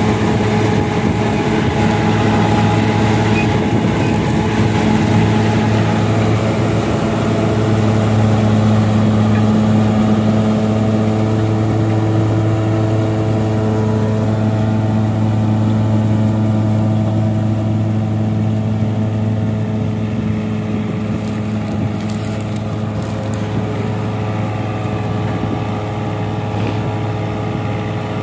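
New Holland Dabang tractor's diesel engine running steadily under load while pulling and powering a straw chopper, growing a little fainter in the last third as it moves away.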